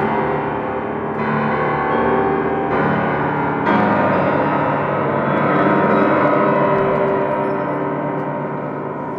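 Closing music of a school performance: three struck chords, about 1, 3 and 4 seconds in, ringing on like a gong and slowly fading away.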